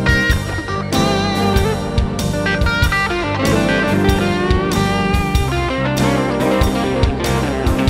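Live rock band playing an instrumental passage with no vocals: electric and acoustic-electric guitars over bass guitar and a drum kit keeping a steady beat.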